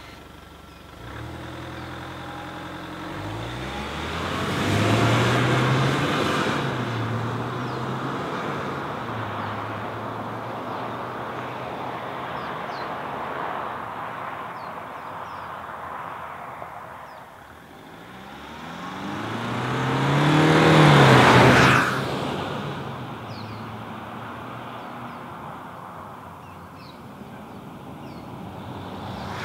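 Land Rover Discovery Sd4's 2.0-litre twin-turbo four-cylinder diesel accelerating hard away under full throttle, its note climbing and stepping through the gear changes, then fading with distance. Later the engine note swells again to a loud peak and drops off suddenly.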